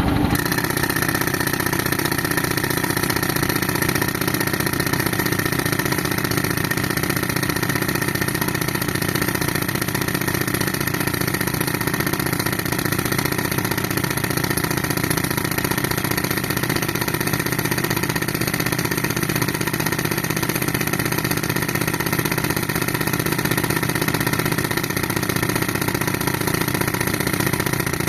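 Tractor engine running steadily at a constant speed, driving an air compressor.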